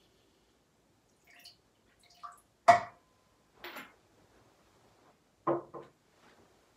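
Altar vessels being handled during the purification after Communion. A handful of separate clinks and knocks as the chalice, cruet and paten are set down and moved; the loudest comes about three seconds in and rings briefly.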